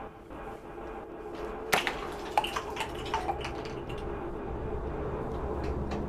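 Water trickling and dripping at a kitchen sink, with a few sharp clinks of dishes about two seconds in.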